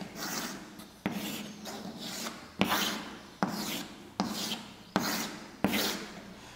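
Chalk scraping on a blackboard as straight lines of a grid are drawn: a series of separate strokes, each starting sharply and fading, about one a second.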